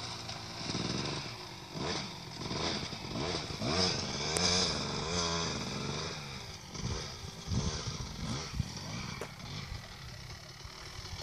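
2002 Kawasaki KX250 two-stroke motocross bike revving up and down repeatedly as it climbs a dirt hill track, heard from a distance. It grows fainter near the end as the bike nears the hilltop.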